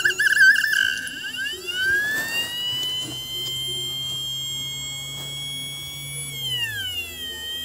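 Hard drive's brushless spindle motor, run without its controller, whining. The high tone warbles at first, glides up over about two seconds as the hub spins up, holds steady, then falls away about six and a half seconds in as the motor slows.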